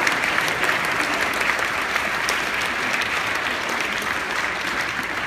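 Audience applauding: dense, steady clapping that tapers off slightly toward the end.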